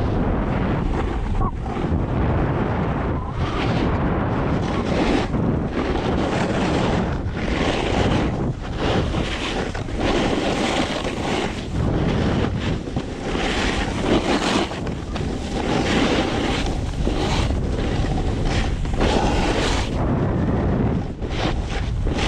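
Wind rushing over the microphone of a hand-held action camera and a snowboard's edges scraping and hissing across groomed snow, the rush swelling and easing with each turn.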